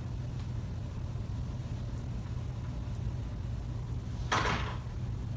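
A steady low hum, then about four seconds in a short clattering rattle as a cat jumps up and swats a metal lever door handle, shaking the handle and door.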